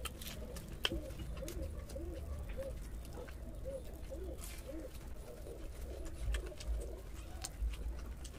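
Crisp fried kachori crust crackling and clicking as it is broken apart by hand and dipped into daal, over soft, repeated bird cooing in the background and a steady low hum.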